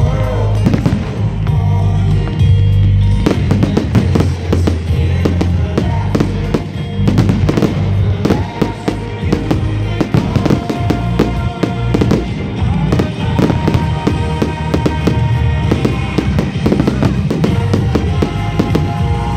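Aerial fireworks display: a dense run of shell bursts and crackling bangs, thickest from about three seconds in until near the end, over loud music.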